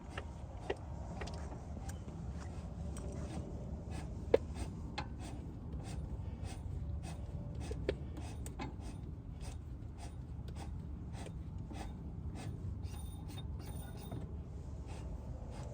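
Threaded spring-perch collar on a Maxpeedingrods T6 coilover being turned with a spanner wrench to lower the ride height: a long run of short metallic clicks and scrapes, roughly two a second, over a low steady rumble.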